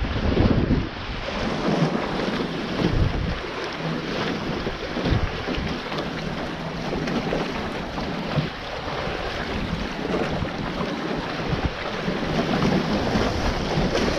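Wind buffeting the action camera's microphone in uneven gusts, over water rushing and splashing along the hulls of a Taipan 5.7 sailing catamaran under way.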